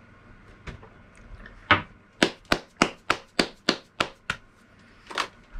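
One person clapping hands: a run of about nine claps at roughly three a second, then a single clap about a second later, after a light knock.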